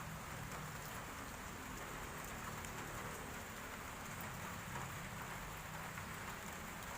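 Steady background hiss with a few faint small clicks.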